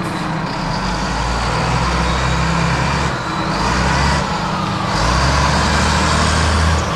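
Fire trucks driving slowly past one after another, their heavy diesel engines running loudest as each one draws level.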